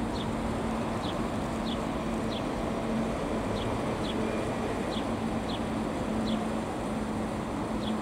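Steady rumble of city traffic with a faint low hum, and a small bird chirping short, high notes about once a second.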